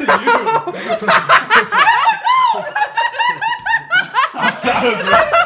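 People laughing hard, in quick repeated bursts, with a word or two mixed in.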